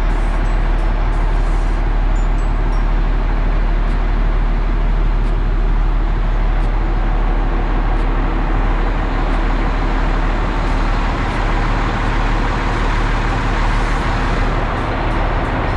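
Heavy engine running steadily at a constant speed, with a deep drone and no change in pitch.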